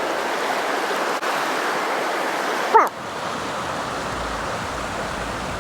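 Creek water rushing steadily, with one short high-pitched yelp-like call a little before three seconds in.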